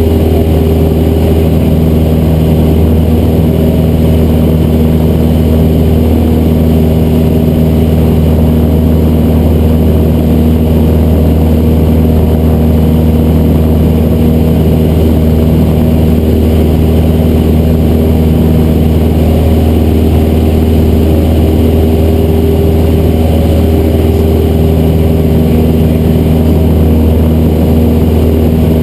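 Cessna 172's piston engine and propeller droning steadily as heard inside the cockpit, holding an even pitch and level throughout.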